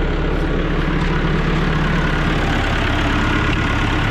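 Massey Ferguson 6455 tractor's diesel engine running steadily while pulling a goble disc harrow through hard ground.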